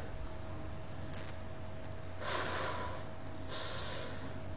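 A woman's soft breath through the nose about two seconds in, lasting just over a second, with fainter breaths before and after it. A faint steady hum runs underneath.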